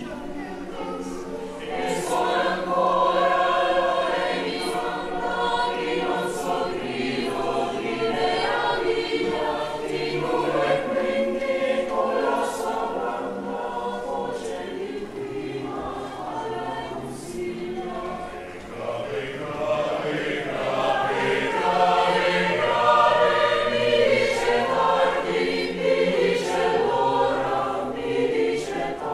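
Mixed-voice choir singing unaccompanied in sustained chords, growing louder about two seconds in.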